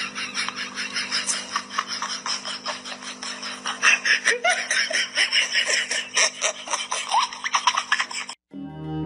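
People laughing over a steady low hum; a little over eight seconds in it cuts off and piano music starts.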